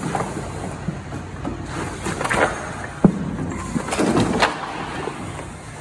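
Firefighter in turnout gear and an SCBA air pack crawling through a wooden entanglement prop: gear and air bottle scraping and rustling against the wood and wires, with a sharp knock about three seconds in.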